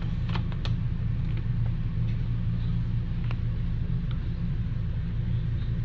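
Steady low hum, with a few faint soft clicks over it.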